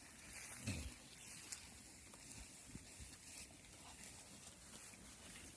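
Goats grazing close by: faint scattered small tearing and chewing sounds of plants being eaten, with one brief low falling sound near the start.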